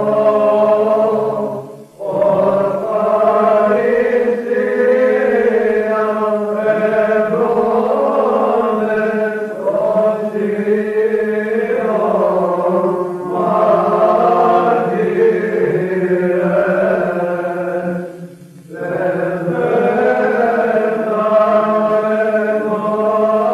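Small group of Greek Orthodox monks singing Byzantine chant, a steady held low drone (the ison) under a moving melodic line. The singing breaks off briefly twice, about two seconds in and again near eighteen seconds.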